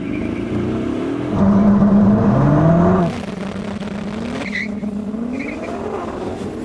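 High-performance cars accelerating hard off the line in a drag race. The engine note rises in pitch, drops back at each upshift and climbs again, louder for the first three seconds and then a little fainter as the cars pull away.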